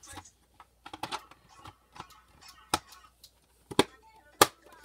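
Plastic slime tub and its snap-on lid clicking and knocking as they are handled: a series of sharp clicks, the loudest near the end.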